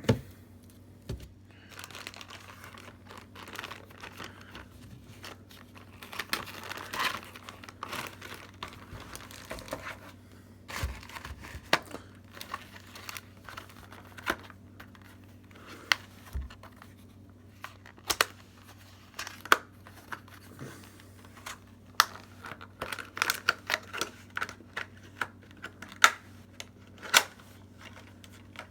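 Packaging crinkling and being torn open by hand, with many sharp clicks and taps that come thicker in the second half.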